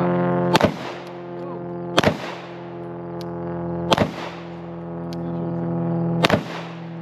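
Four 9mm handgun shots, unevenly spaced about one and a half to two and a half seconds apart, over a steady low hum.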